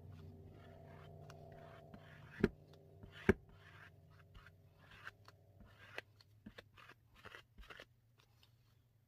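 Faint scratching and scraping of a small applicator spreading epoxy over a wooden board, with scattered light ticks and two sharper clicks about two and a half and three and a half seconds in. A steady low hum sits underneath and fades out near the end.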